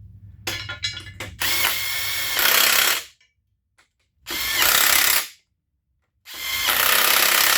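Handheld power tool run in three bursts of about a second each, driving in mount bolts, after a few sharp clicks of metal parts being handled.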